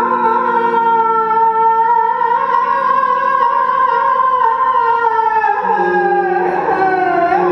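Droning pitched tones made into a cupped stage microphone and amplified: a held tone slowly rises and then sags in pitch, and a lower steady drone joins it about three-quarters of the way through.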